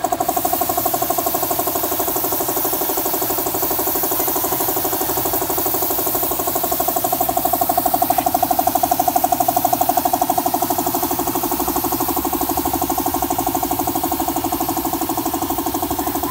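Air compressor running steadily, its motor giving a fast, even pulsing drone, while a cup-type paint spray gun hisses as it sprays the finish coat.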